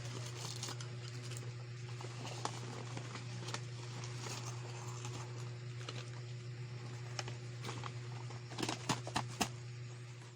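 Small taps and clicks of objects being handled, with a quick cluster of sharper clicks near the end, over a steady low hum.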